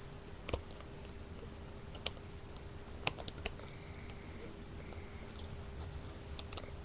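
Plastic LEGO pieces clicking as they are handled and pressed together: a few sharp, scattered clicks, the loudest about half a second in and around three seconds in, over a faint steady hum.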